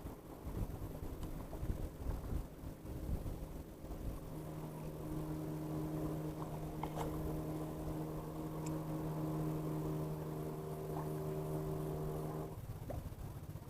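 Wind buffeting the microphone, then an engine running steadily at one pitch for about eight seconds before cutting off abruptly near the end.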